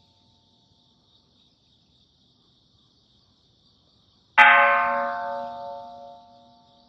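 A Japanese Buddhist temple bell struck once, about four seconds in, with a sharp clang and then several tones ringing out and fading over a couple of seconds. The last of the previous stroke's ringing dies away at the start.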